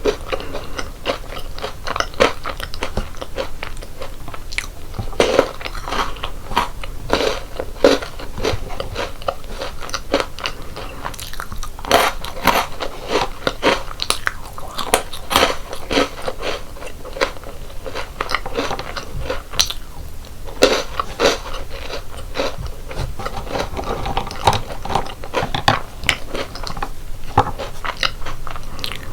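Close-miked crunching and chewing of crisp chocolate-coated snacks and biscuits: many sharp, irregular crunches with wetter chewing between them, thickest about midway.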